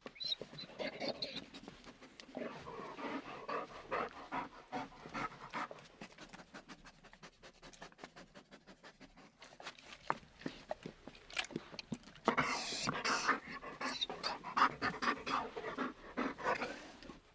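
A dog panting in quick, rhythmic breaths with wet mouth clicks, louder in the last few seconds.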